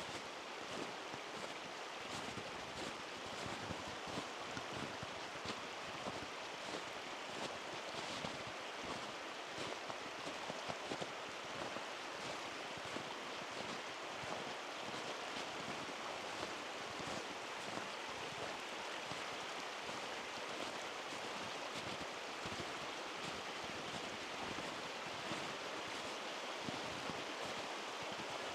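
Steady rushing of a mountain stream, an even wash of water noise with no change throughout.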